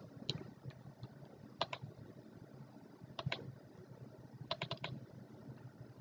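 Faint, scattered clicks from a computer keyboard and mouse being worked: a pair of quick clicks, another pair, then a short run of four or five near the end.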